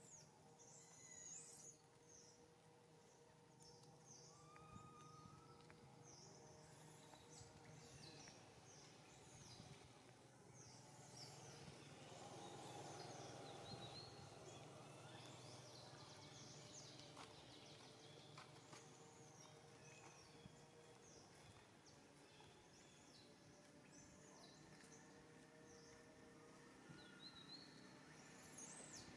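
Faint outdoor ambience with many short, high chirps of small birds scattered throughout, over a low steady hum.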